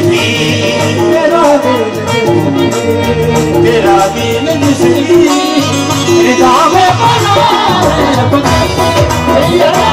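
Qawwali music played live: harmonium melody over a continuous tabla rhythm, with the party's voices singing.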